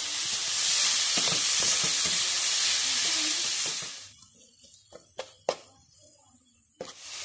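Chopped onion and ginger-garlic paste frying in hot oil on a tawa, sizzling loudly as a steel spoon stirs them. The sizzle cuts out about four seconds in, leaving a couple of sharp clicks, and returns near the end.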